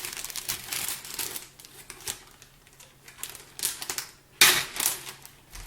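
Packaging being handled while items are taken out of a box: quick crackling and clicking of wrapping and loose goods, with a louder burst of rustling about four and a half seconds in.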